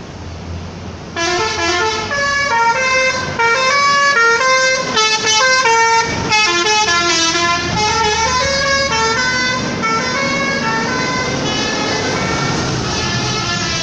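A bus's telolet horn, a multi-tone air horn, playing a quick tune of changing notes that starts about a second in, over the low running of the bus engine. Near the end the notes run together and become less distinct.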